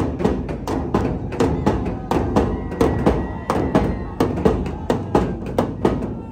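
Large bass drums (dhols) beaten in a fast, steady rhythm, about four heavy strokes a second.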